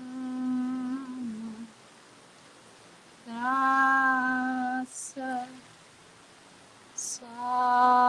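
A woman's voice singing long wordless held notes on one low pitch, three times, the first sliding down at its end, with quick breaths drawn in between.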